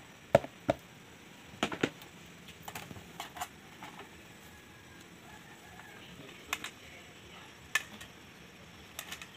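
Hands tossing shredded green papaya and carrot in a stainless steel tray, with a sharp knock about half a second in and scattered sharp metal clicks against the tray as the mixing goes on.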